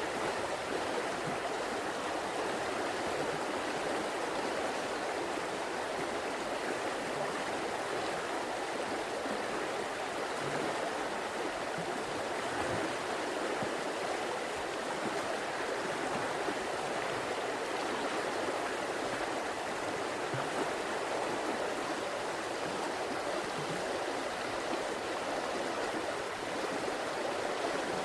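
River water flowing: a steady, even rush with faint small gurgles here and there.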